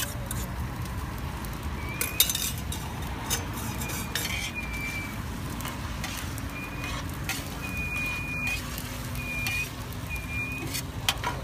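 Metal spatula and ladle scraping and clinking against a large steel frying pan as noodles and eggs are stir-fried, with a few sharp clinks and some short squeaky scrapes toward the end.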